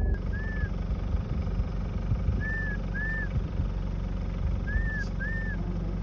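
Vehicle driving slowly on a dirt road: a steady low rumble of engine and tyres. A short high two-note chirp comes three times, about two and a half seconds apart.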